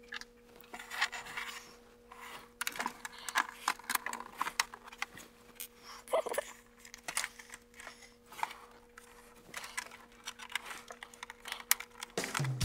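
Sped-up clicking and rattling of an Epson WF-4740 printer's plastic covers and parts being handled and pried off, a quick run of sharp clicks over a faint steady hum.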